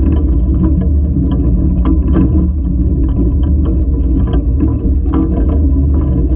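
Steam locomotive running gear heard from right beside the driving wheels as the engine rolls slowly: a steady low rumble with frequent small, irregular clicks and knocks from the wheels and coupling rods.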